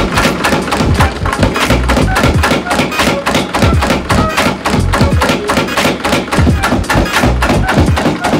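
Home-built 50 lb tire power hammer running, its ram striking a red-hot steel bar on the die in a fast, even run of heavy blows.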